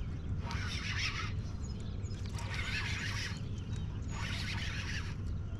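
Fishing reel whirring in bursts of about a second, four times, as a hooked smallmouth bass is reeled in, with a steady low rumble underneath.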